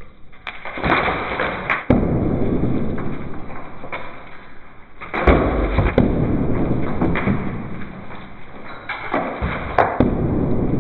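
Old brickwork being knocked out by hand with a hammer, no power tools. Several sharp knocks come through, each followed by a second or two of bricks and mortar rubble falling and clattering down.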